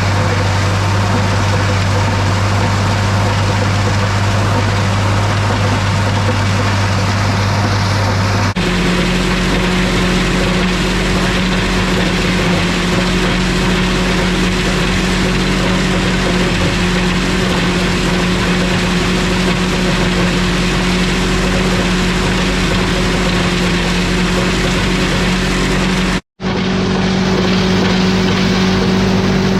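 International 1256 tractor's diesel engine running steadily under load, driving an Art's-Way grinder-mixer, with a steady low hum. The pitch of the hum shifts about a third of the way in, and the sound cuts out for an instant near the end.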